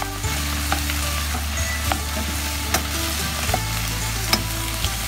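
Shredded cabbage sizzling in a pot as it is stir-fried, with the spatula scraping and ticking against the pot now and then.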